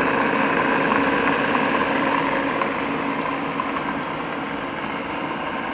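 Standard Modern 1333 gear-head lathe running, its headstock gearing and motor giving a steady mechanical hum that drops a little about three seconds in.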